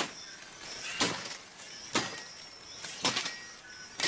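Sharp chopping blows struck against a tree trunk, about one a second, with a quick double hit near the end.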